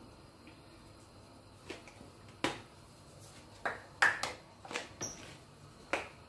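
A string of short, sharp clicks and taps, about eight spread over four seconds, from small spice containers being handled and shaken over a steel cooking pot.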